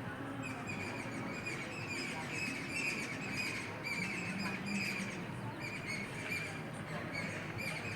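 Small birds chirping: quick clusters of short, high notes repeating every second or so, over a steady background hiss.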